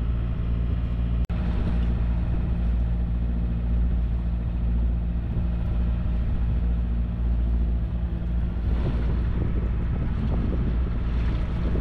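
Sailboat's inboard engine running steadily under motor, with wind on the microphone. The sound breaks off for an instant about a second in.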